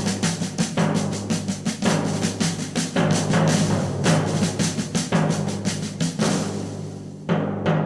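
Music with a busy drum beat over steady low bass notes, breaking off briefly near the end.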